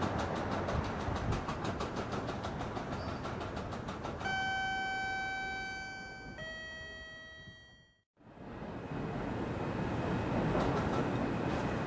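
Split-flap (Solari) departure board clattering as its flaps turn over: a rapid, even run of clicks at about ten a second, dying out a few seconds in. Then a sustained pitched tone that steps down to a lower note. After a brief break, a steady rushing train noise.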